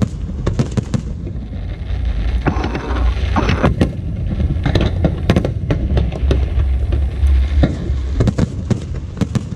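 Aerial fireworks display: shells bursting in rapid, irregular succession, many bangs overlapping a continuous low rumble.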